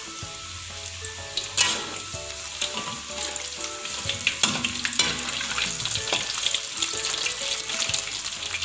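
Flour-coated chicken pieces deep-frying in hot oil in a wok, a steady crackling sizzle. A metal spatula stirs and turns the pieces, with a few sharp clinks against the wok.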